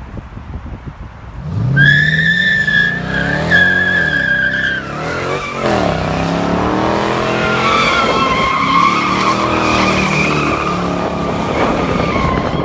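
Dodge Hellcat Redeye's supercharged V8 revving hard during donuts, with the tyres squealing as they spin and smoke. The engine comes in about a second and a half in, drops off its revs briefly around the middle, then is held high under the squeal.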